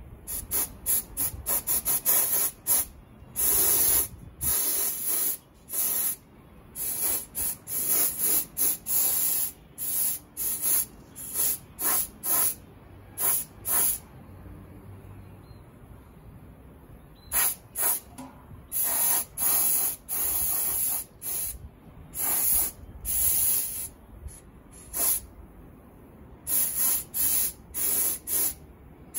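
Compressor-fed gravity-feed paint spray gun hissing in many short bursts, a few a second, as the trigger is pulled again and again to lay basecoat paint. There is a pause of about three seconds midway.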